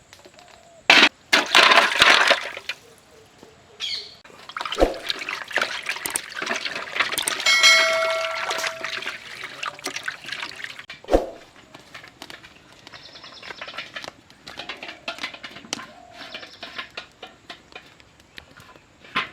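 Street-stall cooking sounds: utensil clatter and liquid noise, with two sharp knocks. A steady pitched tone lasts about a second and a half near the middle.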